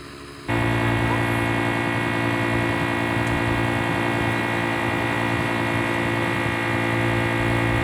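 Electric inflation pump for an inflatable paddleboard switching on about half a second in, then running with a steady motor hum as it pumps up the board.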